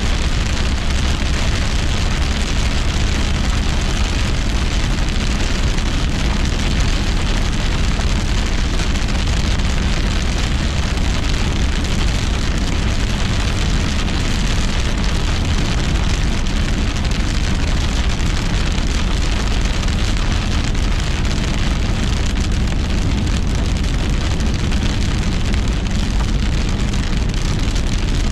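Heavy rain hitting a moving car's windshield and roof in a steady, dense hiss over low road and tyre rumble, heard from inside the car.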